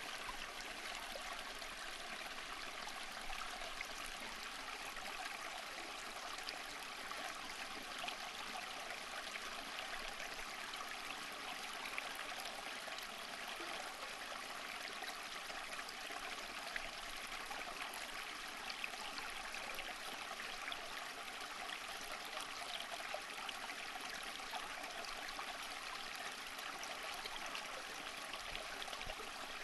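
Flowing stream water running steadily over stones, a continuous rushing with small splashes and trickles.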